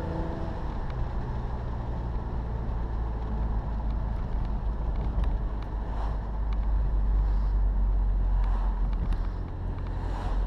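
Inside the cabin of a 2005 BMW E46 M3, its straight-six with aftermarket headers and Corsa exhaust drones at steady, low revs while cruising, under road and tyre noise.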